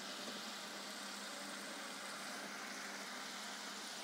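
Kajjikayalu (stuffed dough dumplings) deep-frying in hot oil in a small kadai: a steady sizzle.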